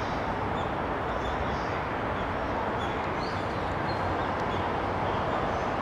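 Steady open-air rumble and hiss of background noise, with a few faint, short high bird chirps scattered through it.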